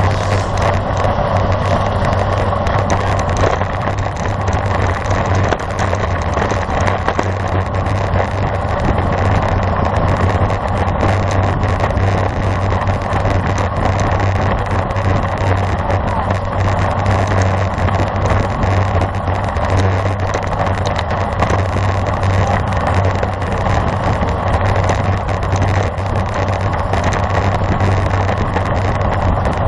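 Steady rush of wind and road noise from a road bike ridden at speed, loud and unbroken.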